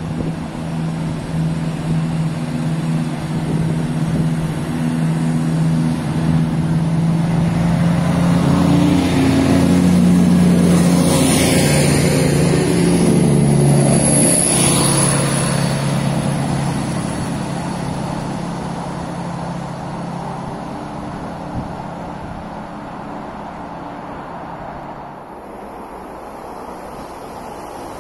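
Transport for Wales Class 170 Turbostar diesel multiple unit going by. Its underfloor diesel engines hum a steady low note that grows louder, then drops in pitch as the train passes about twelve to fourteen seconds in. At the loudest point a rushing noise of the passing train joins the hum, and the hum then fades as the train moves away.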